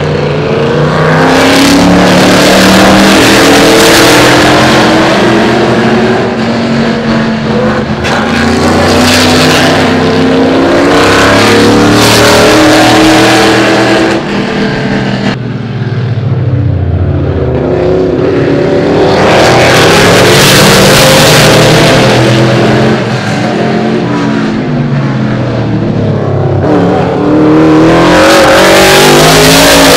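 Vintage 1966–1972 Trans-Am race cars' V8 engines, loud and revving up and down as several cars pass one after another. The sound swells and fades with each pass, dipping briefly about halfway through and again a few seconds before the end.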